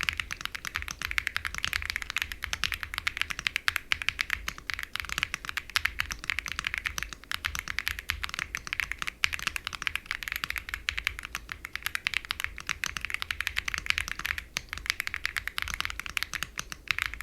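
Steady fast typing on a Velocifire AL65 65% aluminum-body mechanical keyboard with linear switches and cherry-profile double-shot PBT keycaps: a dense, continuous stream of key clacks, easing off briefly about fourteen seconds in.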